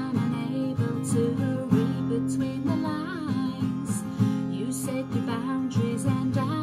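Acoustic guitar strummed with a capo on the neck, with a woman singing over it.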